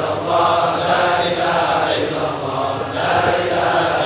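A large congregation of men chanting an Arabic devotional dhikr in unison, many voices together on a slow melody that swells and eases about once a second.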